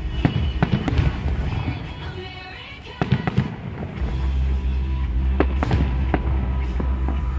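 Aerial fireworks shells bursting with sharp cracks and bangs, a quick cluster in the first second and another about three seconds in. Music plays alongside, with a heavy steady bass from about four seconds in.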